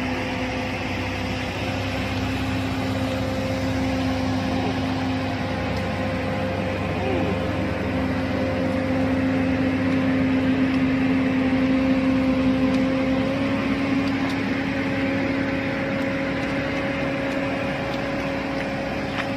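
Steady mechanical drone: a constant low hum with one held tone, swelling slightly around the middle and stepping up a little in pitch about two-thirds of the way through.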